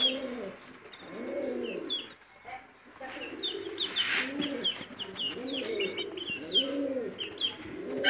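Doves cooing in a steady run of low, arched calls, with small cage birds chirping in short high notes over them.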